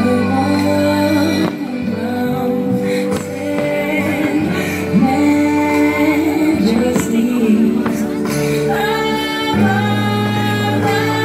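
Music with singing over held instrumental chords.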